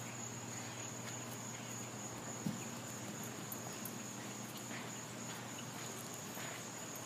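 Insects making a steady high-pitched drone over quiet outdoor background, with a single faint knock about two and a half seconds in.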